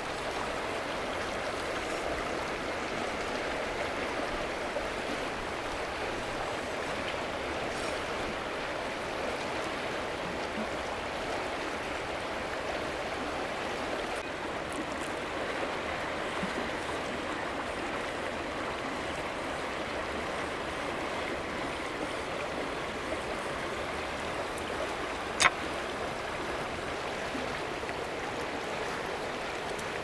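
A river rushing steadily, an even wash of flowing water. A single sharp knock stands out about three-quarters of the way through.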